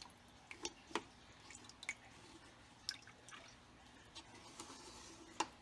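Faint, irregular water drips and small ticks, a clearer one about a second in and another near the end.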